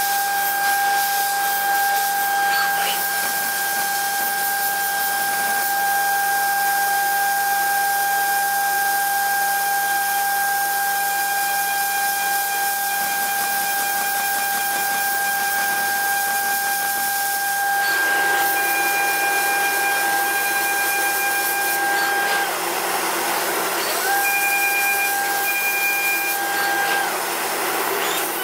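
CNC milling machine cutting metal with an end mill: a steady high-pitched whine over a constant hiss. The whine breaks off about 22 seconds in, comes back for a few seconds, then stops again near the end.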